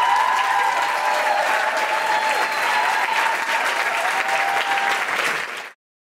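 Audience applauding, with a last bass note dying away in the first second. The applause cuts off abruptly near the end.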